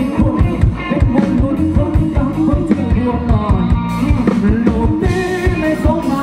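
Live rock band playing through a loud PA: electric guitar and a drum kit with a steady beat, and a man singing.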